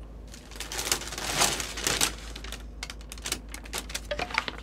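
Thin plastic bags rustling and crinkling as takeout food is pulled out of them: a rustling swell in the first half, then a run of quick sharp crackles.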